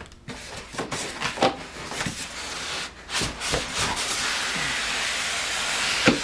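Plastic and paper packaging rustling and crinkling, with small knocks, as accessories are packed back into a box; a steady hissing rustle fills the second half.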